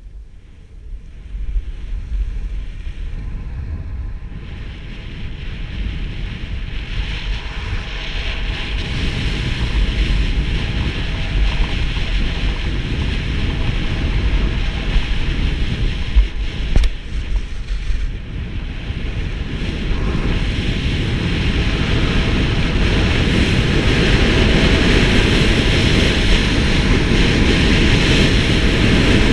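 Wind rushing over the microphone of a helmet- or body-mounted camera while skiing, with the hiss of skis running over groomed snow, growing louder as speed builds. A single sharp tick about halfway through.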